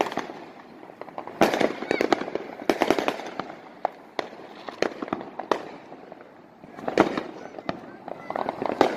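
Fireworks going off: clusters of sharp bangs and crackles, with a short lull past the middle and another quick volley near the end.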